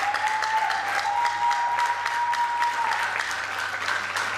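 Audience applauding, with a single steady high tone held over the first three seconds.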